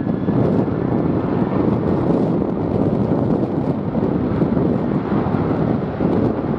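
Strong wind buffeting the microphone, a loud, steady rumbling noise with no clear tone.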